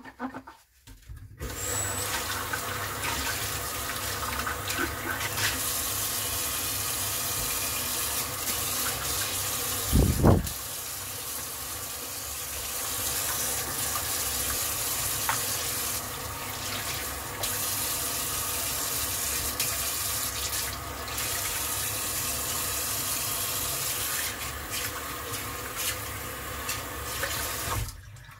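Water from a pull-out kitchen faucet running into a sink, turned on about a second and a half in and shut off near the end. There is a single dull thump about ten seconds in.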